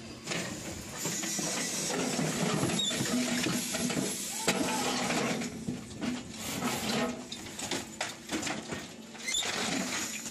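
Air-over-hydraulic hoof-trimming chute being worked from its control levers: hydraulic rams moving, with frequent metal clicks and clanks from its gates and frame as a cow is released.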